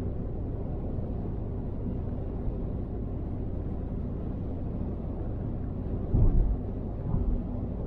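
Car driving at motorway speed: steady low road and tyre rumble with a faint engine hum. Two short, louder low thumps come about six and seven seconds in.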